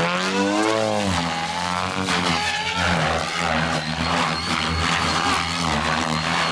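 Goblin Kraken electric RC helicopter flying 3D manoeuvres: the rotor and motor sound glides up and down in pitch in the first two seconds as the load changes, then holds a steadier pitch with a low rotor rumble.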